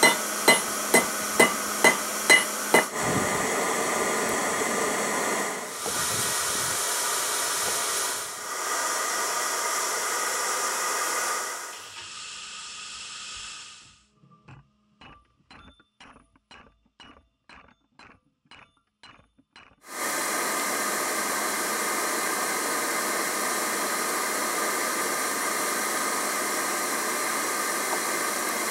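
A hand hammer strikes red-hot rebar on a steel rail anvil, about three ringing blows a second for the first three seconds. Then comes a steady rushing noise, broken near the middle by a much quieter stretch with faint ticks about twice a second, and the noise returns for the rest.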